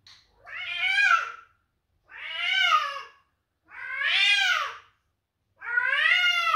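Domestic cat meowing four times: long, drawn-out meows, each rising and then falling in pitch, with short pauses between them.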